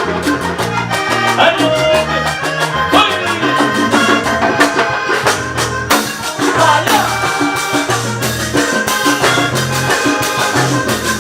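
Latin dance music in a salsa style, with a steady repeating bass line, melodic lines above it and dense shaken percussion.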